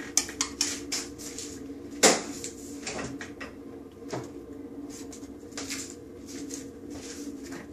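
Kitchen things being handled off to the side: one sharp knock about two seconds in and a few lighter clicks and taps, over a steady low hum.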